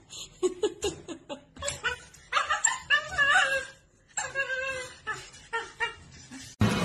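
Dogs whining and yipping in short, irregular calls. Music cuts in abruptly near the end.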